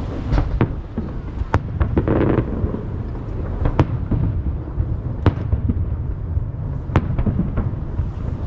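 Fireworks shells bursting over the sea: a series of sharp bangs a second or two apart over a continuous low rumble, with a short patch of crackle about two seconds in.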